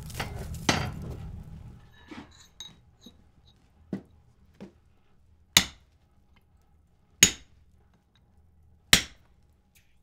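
Hand hammer forging a glowing wrought iron bar on an anvil: a few lighter blows with a short metallic ring, then three hard strikes about 1.7 s apart in the second half. A rushing noise fades out over the first two seconds.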